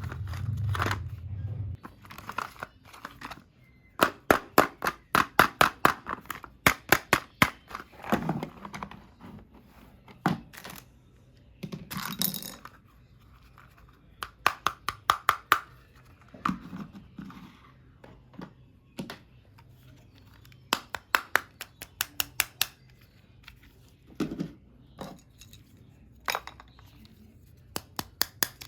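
Plastic toy gun clicking in repeated bursts of rapid sharp clicks, about five or six a second, with thumps and handling noises between the bursts.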